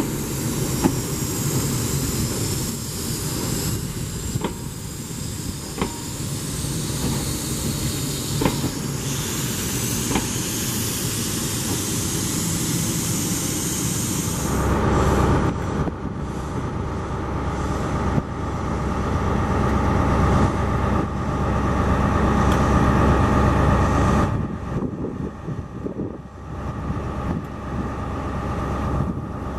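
Passing HST train: the coaches roll by with a high hiss and scattered clicks from the wheels on the rails. About fourteen seconds in, the rear Class 43 diesel power car draws level and its engine takes over, louder and lower with a steady whine, before falling away about ten seconds later.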